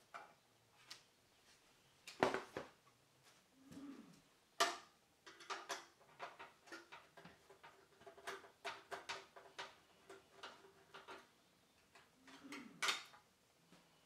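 Sharp knocks and clicks of hardware being handled against a metal PC case, then a quick run of ticks as a screwdriver drives a screw into the expansion-slot bracket to secure the graphics card.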